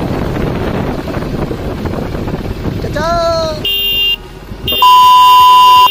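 Motorcycle on the move with engine and wind noise. Then a short horn beep, and near the end a long, very loud horn blast, sounded as a warning at a scooter rider pulling out ahead.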